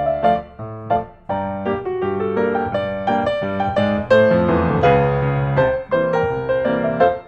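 Background piano music, a busy run of short notes at a steady level.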